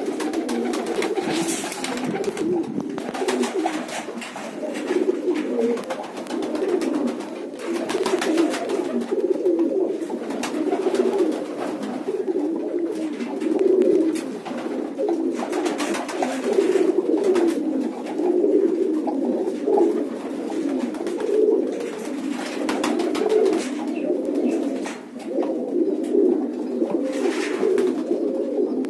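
A flock of domestic pigeons cooing together in a small loft, a continuous overlapping chorus of low coos, with occasional short clicks.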